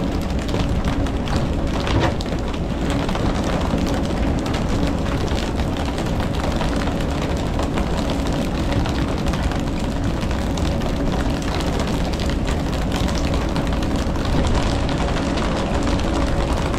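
A fishing boat's engine running steadily under a constant rush of splashing water.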